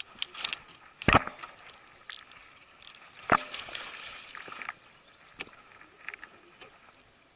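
Knocks, clicks and rattles of a rod, reel and gear being handled in a small fishing boat while a hooked bass is brought in, with two heavy thumps about a second and about three seconds in.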